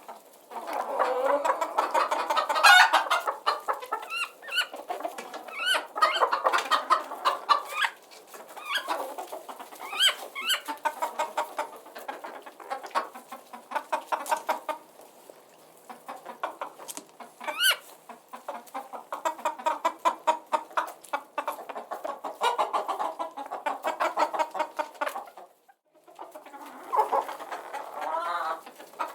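A flock of chickens clucking continuously, with occasional sharper rising squawks. There is a brief break near the end.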